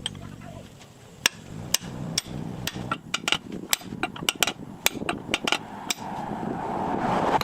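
Repeated sharp knocks of a tool striking wood: spaced out at first, then coming quicker, with a rising noise building near the end.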